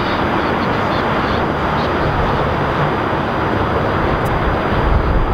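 Airbus A320-family jet airliner taxiing, its engines a steady, distant rushing rumble; a low rumble swells briefly near the end.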